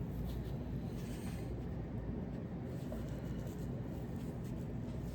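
Faint scratching and rubbing as a stick of Loctite threadlocker is worked onto a small knife screw's threads, over a steady low hum.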